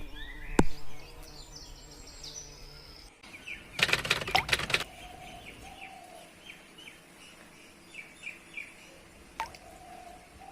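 Small birds chirping in short repeated notes, with a brief rustling burst about four seconds in and a few lower, falling calls in the second half.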